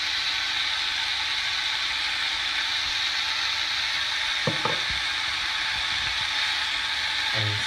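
Chicken mince frying in a pan with curry powder and garlic, sizzling steadily. Two short taps come about four and a half seconds in.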